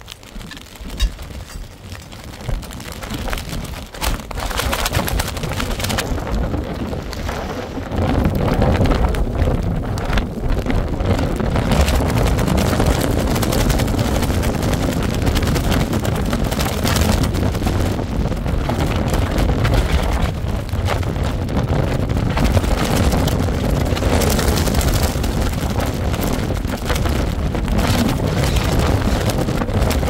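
Strong storm wind gusting against the microphone as a loud, rumbling buffeting. It builds sharply about eight seconds in and stays loud.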